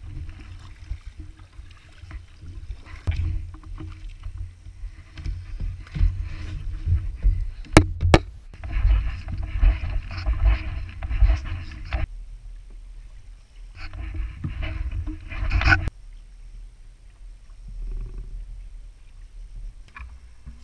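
Water sloshing and splashing against a kayak's hull on open sea, over a steady deep rumble of wind on the camera microphone. The rushing grows louder in two stretches, and two sharp clicks come close together about eight seconds in.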